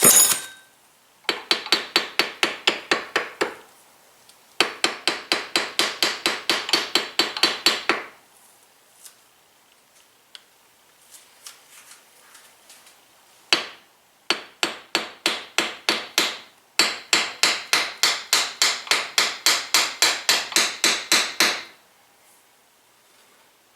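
Quick runs of hammer blows on metal, about four or five a second, each with a short ring. There are four runs with a lone blow between the second and third. This is a shock part being driven down into the coilover body.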